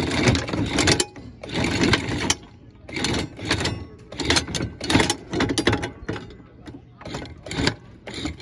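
Newly installed electric anchor windlass running, hauling in chain and lifting the anchor up to the bow roller. The motor and chain noise comes in uneven bursts with clanks in between.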